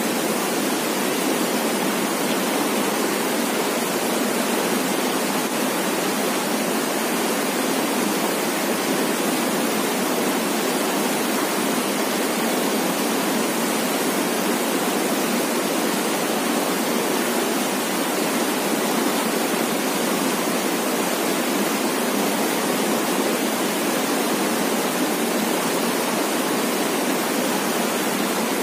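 Fast, shallow river rushing over rocks in white-water rapids: a steady, unbroken rush of water.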